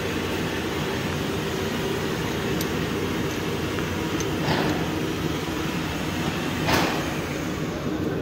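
A steady background hum throughout, with a few faint light clicks as steel pushrods are set down into the hydraulic lifters of a 3.3 V6 engine.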